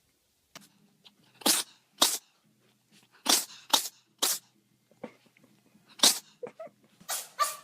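Cats sneezing: about half a dozen short, sharp sneezes, some coming in quick pairs.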